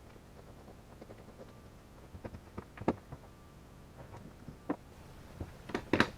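Scattered light clicks and knocks of hand tools handled against a cordless drill, with a Torx bit being fitted to the chuck screw; one sharper knock a little under three seconds in and a quick cluster near the end.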